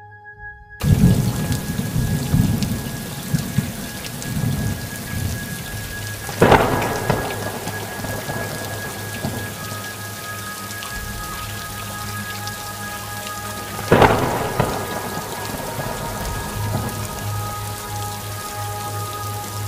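Thunderstorm sound effect: steady rain with thunder rumbling in suddenly about a second in, then two sharp thunderclaps, about a third and about two-thirds of the way through, each trailing off in a rumble.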